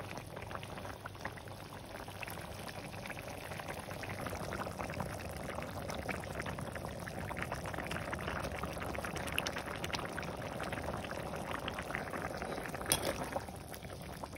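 Curry broth bubbling at a simmer in a metal pan, with a spatula stirring through the liquid. A sharp clink of the utensil against the pan comes near the end.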